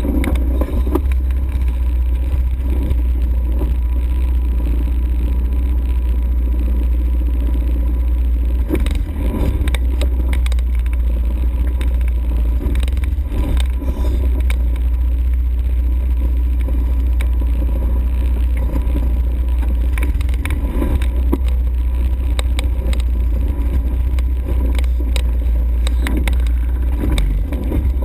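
ATV engine running steadily during a ride, under a heavy low rumble, with frequent short knocks and rattles throughout.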